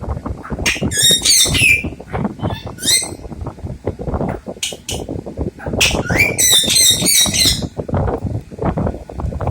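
Rose-ringed parakeets giving several short bouts of shrill chirping, the longest about six seconds in, with wind rumbling on the microphone.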